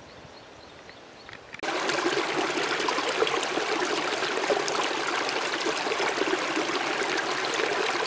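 Quiet forest ambience with faint quick high chirps, then, suddenly about one and a half seconds in, a small mountain stream close by, splashing and gurgling over stones, loud and steady.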